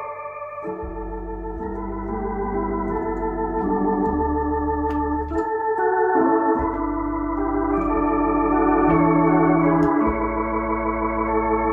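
Hammond H-112 valve tonewheel organ playing held chords over deep bass notes, through its internal speakers with the dual vibrato on, so the notes waver in pitch.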